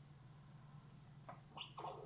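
Eurasian red squirrels squeaking: a quick run of short, shrill squeaks and scratchy calls in the second half, over a steady low hum.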